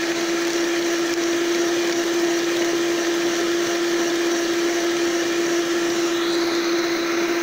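Electric hand mixer running at a steady speed, its twin wire beaters whisking liquid cake batter in a bowl: a loud, even motor whine with one steady tone.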